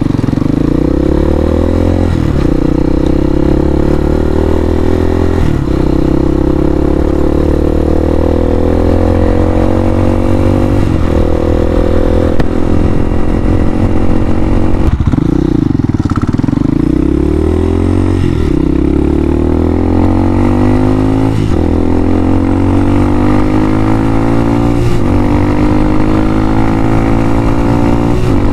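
Hawk 250 dual-sport motorcycle's single-cylinder engine pulling away from a stop and accelerating. It climbs in pitch and drops sharply at each gear change every few seconds, and about halfway through it slows, then pulls up through the gears again.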